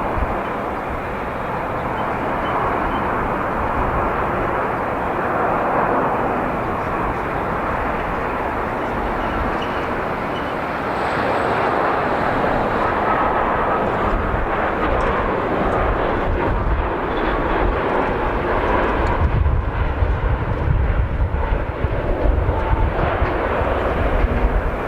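Boeing 787 Dreamliner jet engines heard on landing approach, a steady jet noise. From about three-quarters of the way in, gusty low rumbling from strong wind on the microphone becomes the strongest sound.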